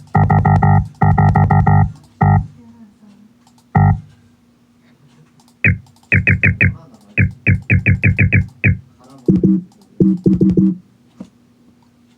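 Short synthesized electronic tones. Two long chord blasts with a deep low end open it, followed by a few single stabs. After a pause come quick runs of short high beeps, about five or six a second, and it ends with a few low notes.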